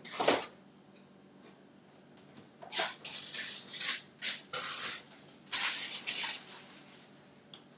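A refrigerator opened and items taken out of it: a sharp knock just after the start, then several short bursts of rustling and clatter.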